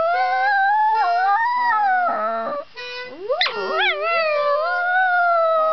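A poodle howling along to a child's harmonica: a long wavering howl that breaks off about two and a half seconds in, then a second howl that opens with a sharp upward yelp and is held, slowly falling in pitch. Short, steady harmonica notes sound underneath now and then.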